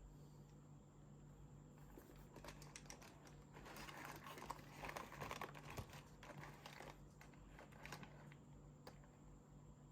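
Chocolate sharebox packaging being handled: faint crinkling and rustling of wrappers, busiest in the middle few seconds.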